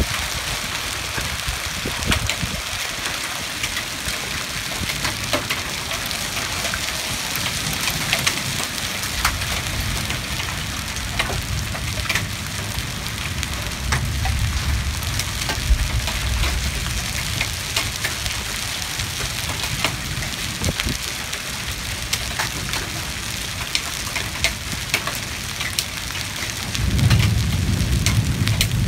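Steady heavy rain pouring in a thunderstorm, with scattered sharp taps of drops striking hard surfaces. Low rumbles come and go, and a louder one sets in near the end.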